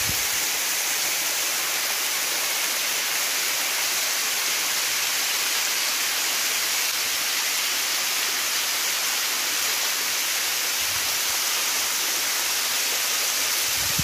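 Waterfall spilling in thin streams down a steep rock face: a steady hiss of falling and splashing water.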